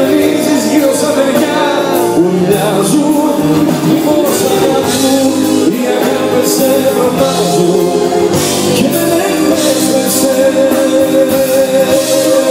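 A live band playing a Greek song, with drums, keyboards and held melodic notes, and the singer's part continuing through it.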